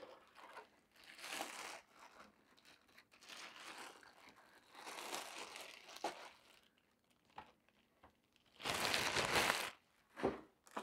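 Packaging crinkling and rustling in several bursts as a food slicer is unwrapped, the loudest burst about nine seconds in.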